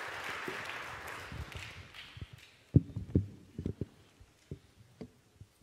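Applause from a church congregation dying away over the first two seconds, then a string of short, low thumps and knocks: handling noise from a handheld microphone as it is carried and things are set down on the lectern.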